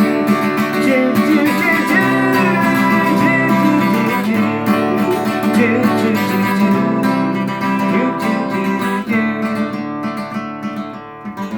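Acoustic guitar strummed in an instrumental passage of a song, easing off in loudness near the end.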